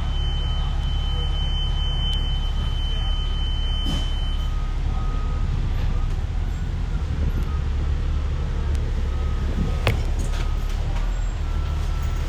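City bus running, heard from inside the cabin as a steady low engine and road rumble. A thin, steady high tone sounds over it and stops about four seconds in, and there are two sharp clicks, one about four seconds in and one near ten seconds.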